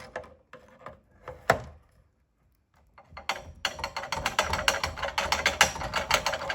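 Garage door opener's gear train clicking and ratcheting as its drive shaft is forced round with channel-lock pliers: a few sharp clicks, a pause, then a rapid run of clicks from about halfway through. The plastic drive gear's teeth are chewed up by the worm gear, so the gears click and catch without turning freely.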